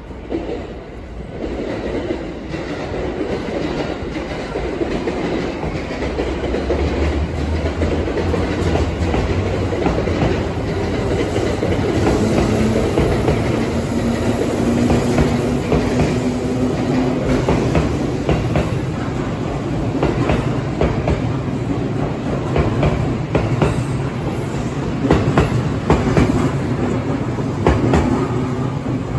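JR West 221 series and 223 series electric train pulling out of a station and running close by, getting louder over the first few seconds as it gathers speed. A motor whine rises in pitch partway through. Later the wheels click again and again over rail joints and points.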